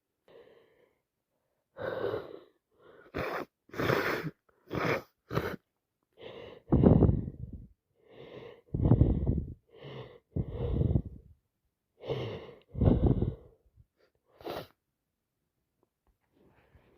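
A woman's run of wet sneezes, about ten bursts, coming in quick succession from about two seconds in. From the middle on, several come as a softer intake followed straight away by a loud sneeze, the fits of a cold or allergy attack.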